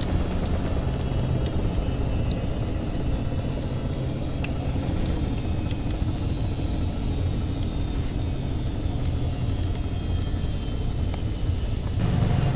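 Washing machine running with a steady low hum and rumble, with scattered faint crackles from a wood fire.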